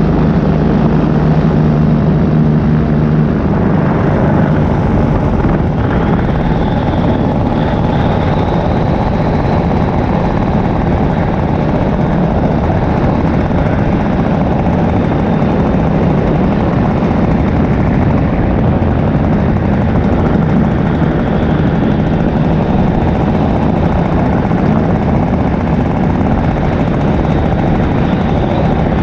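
Paramotor engine and propeller running steadily. Its even note changes to a rougher sound about three seconds in.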